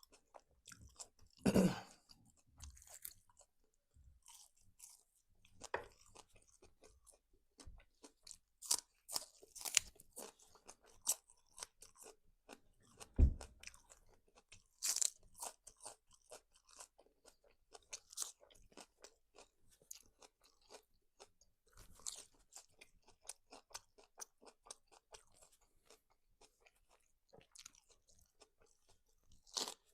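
Close-miked eating of a fried cutlet and french fries: steady wet chewing with repeated crunchy bites, a few of them loud and sharp. A single dull thump about halfway through is the loudest sound.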